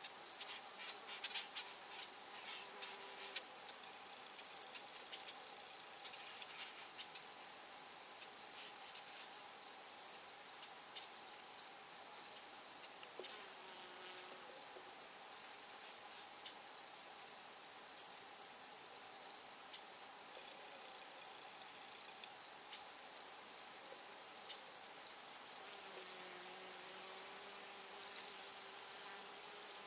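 A steady chorus of insects in summer vegetation: one high continuous trill over a second, slightly lower one that pulses rapidly.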